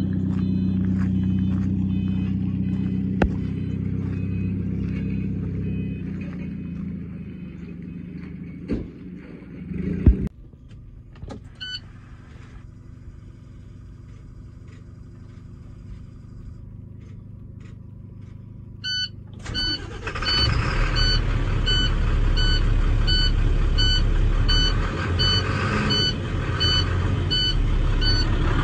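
Heavy truck's diesel engine running, then dying away; a door shuts with a bang about ten seconds in, and the cab goes quiet apart from short warning chimes. Near the end the engine starts up and runs with a warning beep repeating about one and a half times a second.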